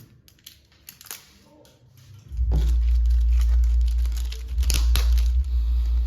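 Polythene packaging crinkling and rustling as it is handled, with small crackles and clicks. About two seconds in, a loud, steady low rumble starts and continues under further crinkling.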